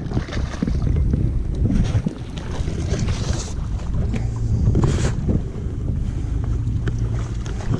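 Wind buffeting the microphone: a steady low rushing noise, with a few brief knocks.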